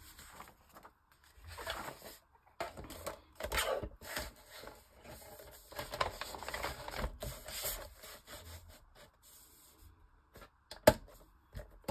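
Paper rustling and sliding as sheets are handled, in short irregular bursts, with a sharp tap near the end.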